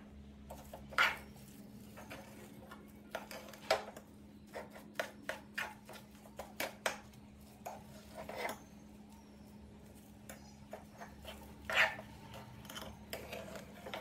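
Metal spoon scraping and clinking against a non-stick frying pan as a thick fish-and-potato filling is stirred and pressed: irregular scrapes and taps, a few of them louder.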